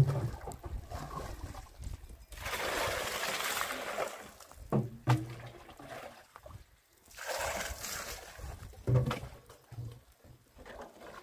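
Water scooped from a metal drum with a bucket, pouring and splashing in two spells, about two seconds in and again around seven seconds, with several sharp knocks in between.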